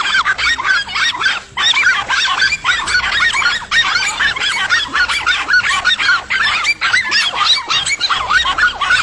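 Many animals calling at once: a dense, unbroken chorus of short, overlapping high calls, with no let-up.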